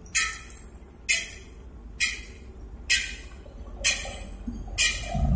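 Long-handled metal frying strainer stirring crispy battered tofu in hot oil in a large aluminium wok, scraping and knocking the pan about once a second, each stroke trailing off in a short sizzle. A low thud near the end.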